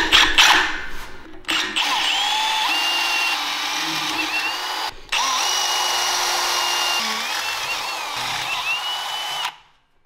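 A cordless drill bores a 23/64-inch hole through a steel sprocket. There are a few short starts first, then steady drilling with the bit squealing as it cuts, a brief pause near the middle, and an abrupt stop just before the end.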